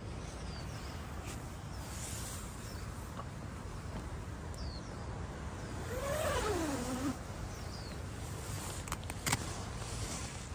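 Faint high bird chirps, short and falling, every few seconds over a steady low background noise. About six seconds in comes one louder low call that rises and then falls over about a second. A few sharp clicks follow near the end.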